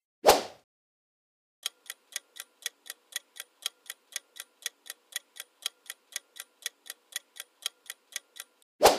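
Countdown timer sound effect: an evenly paced clock tick, about four ticks a second for around seven seconds. A short sharp sound comes just after the start, and another sharp hit comes as the ticking stops.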